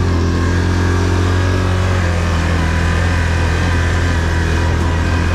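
ATV engine running at a steady, even speed, with a slight shift in its tone about two seconds in.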